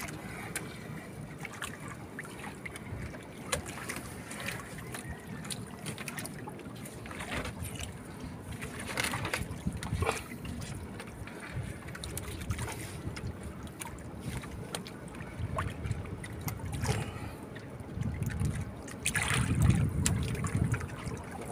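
Sea water lapping and sloshing against a small wooden outrigger boat's hull, with wind on the microphone and scattered small knocks. Near the end, a hand plunging into the water makes a louder splashing stretch.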